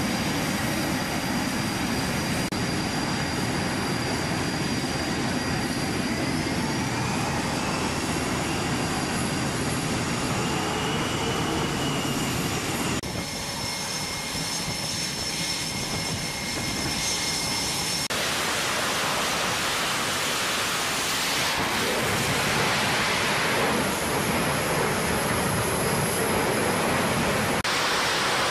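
F/A-18 Super Hornet twin turbofan jet engines running on a carrier flight deck: a steady loud jet rush with a high whine, which rises in pitch about six seconds in. The sound changes abruptly several times, turning to a brighter, hissier rush in the last third.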